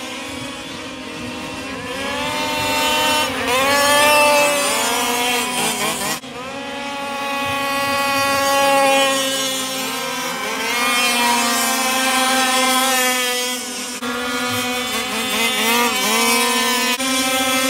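Several 1/5-scale RC race trucks running laps together, their motors repeatedly rising and falling in pitch as they accelerate down the straights and back off for the turns, over a steady low drone; the sound breaks off abruptly about six seconds in and again near fourteen seconds.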